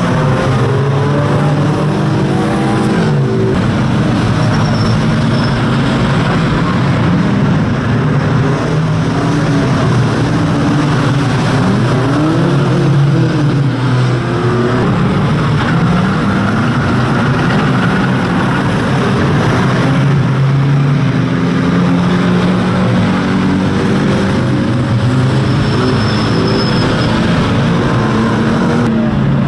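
Engines of several old banger race cars running and revving together, their pitches rising and falling as they accelerate, lift off and pass.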